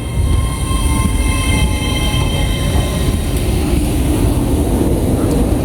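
Train moving close by at the platform: a heavy, steady low rumble, with several high, steady electric whines that fade away over the first few seconds.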